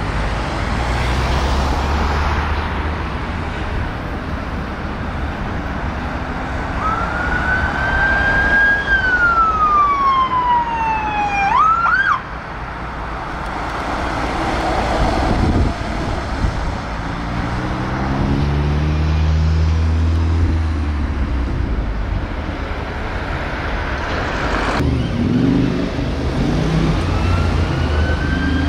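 Renault Master ambulance's siren giving one slow wail that rises and falls, then a quick upward yelp that cuts off abruptly, over engine and traffic noise. Later an engine runs, and near the end a second ambulance's siren (a Mercedes-Benz Sprinter's) starts a rising wail.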